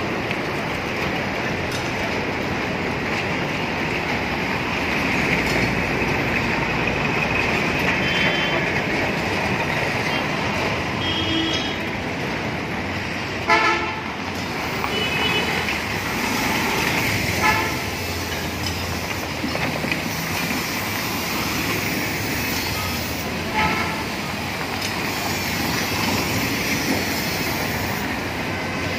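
Road traffic running steadily, with several short vehicle horn toots from passing traffic; the loudest horn blast comes about halfway through.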